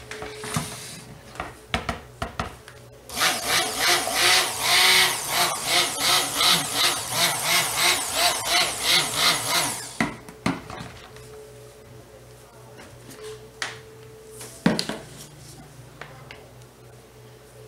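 Hamilton Beach immersion blender running in a plastic bowl of cold-process soap batter, oils and lye solution being stick-blended. Its motor rises and falls about twice a second for roughly seven seconds, then stops; a single knock follows a few seconds later.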